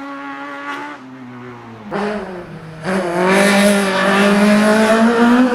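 Small four-cylinder race hatchback engine, running softer for the first two seconds, then revving hard under acceleration from about two to three seconds in and held at high revs before it cuts off abruptly at the end.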